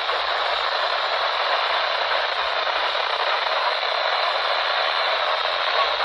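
Steady radio static hiss from a NOAA Weather Radio receiver on a weak signal.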